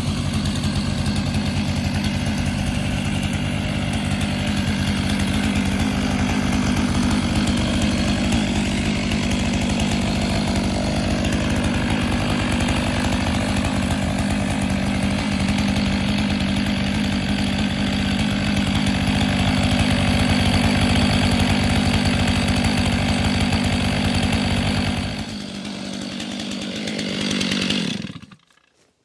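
Stihl MS 500i fuel-injected two-stroke chainsaw running at high revs bucking firewood logs, its chain dulled from cutting through dirt. Near the end the sound drops, swells briefly, then stops suddenly as the saw is shut off.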